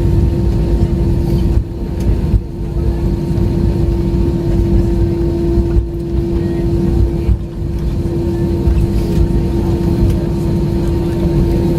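Cabin noise of an airliner taxiing after landing: a steady low rumble with a constant hum running through it.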